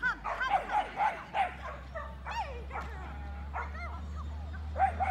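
A dog giving a rapid, irregular series of high-pitched yips and barks, some rising and falling in pitch like whines, loudest in the first second and again near the end.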